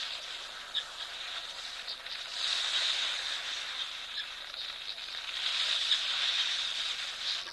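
Outdoor ambience: a steady hiss that swells twice, with a few short bird chirps over it.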